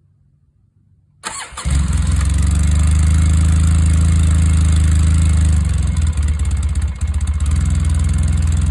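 A Polaris ATV engine is started about a second in, catches at once and settles into a steady idle through its stock, unmodified factory muffler.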